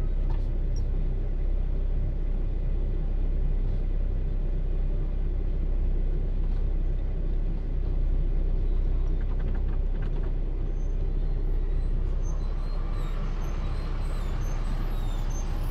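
Steady low rumble of a car engine running, heard from inside the car's cabin.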